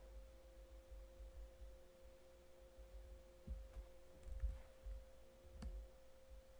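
Near silence apart from a faint steady high hum, with a fainter lower tone beneath it, and a few soft low thumps. A single short click comes about five and a half seconds in.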